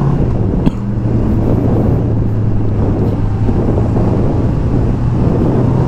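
Honda CB650R's inline-four engine running steadily through its stock factory exhaust while cruising, with wind rushing past; the note breaks briefly under a second in.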